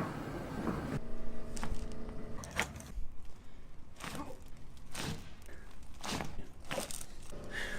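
Upper-back chiropractic adjustments: a series of sharp cracks and thuds, one about every second, as the thoracic spine joints pop under the practitioner's thrusts.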